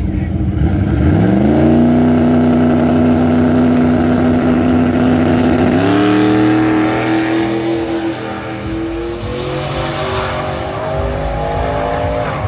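Drag car's engine revving up hard about a second in and holding a steady high pitch. Near the six-second mark the pitch jumps higher. It then grows quieter while the pitch slowly climbs, and falls away near the end.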